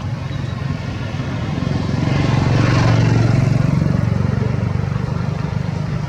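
Motor vehicle engine running with a steady low hum, growing louder about two to three seconds in and then easing off slowly.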